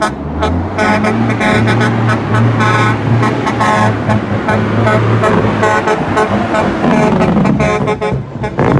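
Vehicle horns honking in short repeated blasts over a big semi truck's diesel engine running low and steady as it rolls slowly along.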